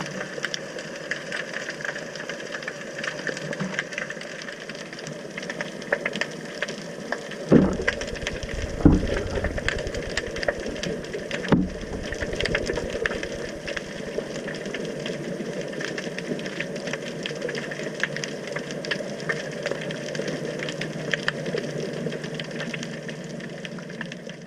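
Sea water heard through a submerged camera: a steady wash of water noise with constant fine crackling, broken by three low thumps in the middle.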